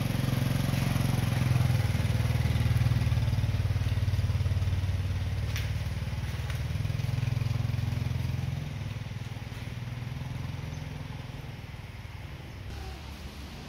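Small motorbike engine running as the rider pulls away, then fading after about eight seconds as it moves off down the street. A single sharp click about five and a half seconds in.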